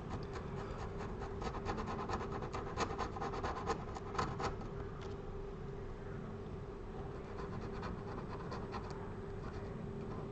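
X-Acto chisel blade scraping leftover adhesive off an iPad's metal frame: a quick run of short scraping strokes in the first half, then a few slower ones later.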